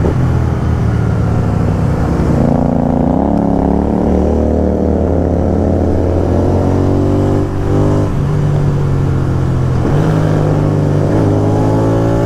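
Royal Enfield Continental GT 650 parallel-twin motorcycle engines with loud aftermarket exhausts running under way, the engine note rising and falling several times as they pull and shift.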